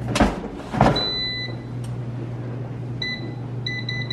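Digital air fryer: the basket is pushed shut with two knocks, the unit gives one longer beep, then near the end a run of short quick beeps as the control dial is turned to set the temperature to 360. A steady low hum runs underneath.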